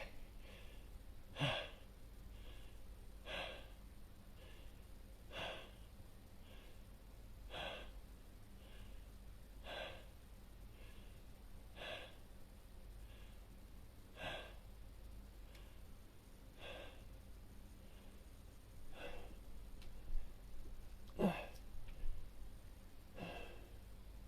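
Faint breathing close to a microphone, breaths coming regularly about every two seconds, stronger and softer breaths alternating.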